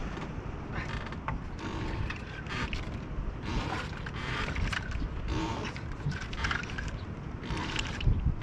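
Fishing reel being wound in short repeated bursts of mechanical whirring and creaking, over a steady low rumble.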